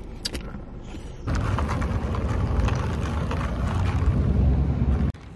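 Wind buffeting a handheld phone microphone outdoors: a loud low rumble with hiss that starts abruptly a little over a second in and cuts off suddenly near the end. Before it, quiet car-cabin room tone with a few light clicks.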